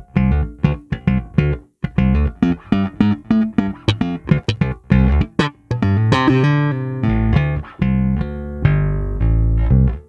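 Squier Classic Vibe '60s Precision Bass played plucked, with its volume and tone knobs full up. It plays a run of short, choppy notes, then longer ringing notes over the second half.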